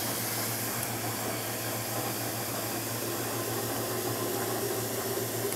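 Steady room noise: an even hiss over a low hum, with no distinct clicks from the lock picking.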